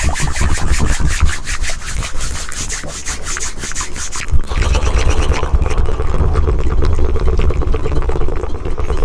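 Close-miked ASMR trigger sounds. For about four seconds there are rapid, scratchy rubbing strokes at roughly eight a second. Then a low, buzzing tongue flutter takes over.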